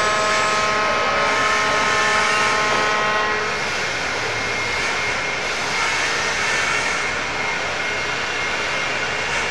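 Steady din of running machine-shop machinery such as milling machines, with a high multi-tone machine whine that stops about three seconds in.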